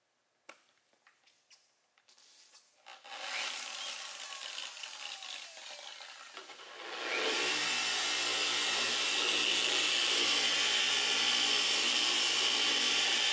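Rupes dual-action polisher: a few clicks and taps as it is handled, then the motor runs at a lower level, and about seven seconds in it becomes a loud, steady whir as the spinning pad works the aircraft's oxidized paint during paint correction.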